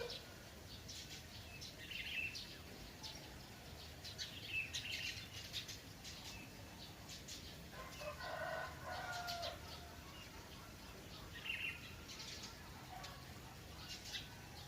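Small birds chirping now and then, with a rooster crowing faintly about eight seconds in, over a steady low background of trickling water.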